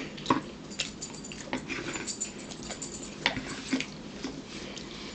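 Chewing and mouth smacks while eating, a scatter of soft, short clicks.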